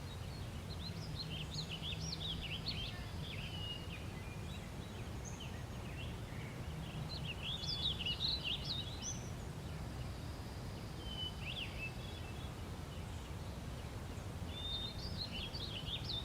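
Small birds chirping and twittering in scattered bursts over a steady low background rumble.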